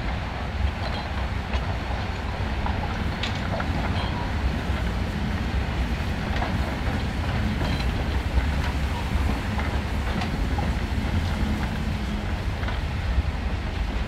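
DR class 50.35 steam locomotive 50 3610 passing under steam, a steady low rumble of its exhaust and running gear on the rails, with a few faint clicks.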